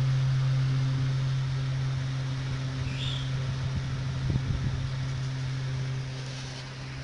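Hot-air rework station blowing on a radio circuit board: a steady rush of air over a steady low hum, with a few faint clicks about four seconds in. The hot air is melting the solder to lift off the radio's final RF transistor.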